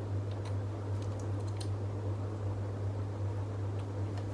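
Light clicks and taps of plastic tripod and ring-light parts being handled, a few faint ones in the first couple of seconds, over a steady low hum and hiss.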